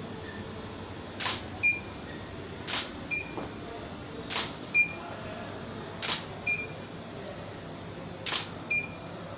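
DSLR camera shutter firing five times, roughly every one and a half to two seconds, each shutter click followed a moment later by a short high electronic beep: a sequence of exposures for a focus stack.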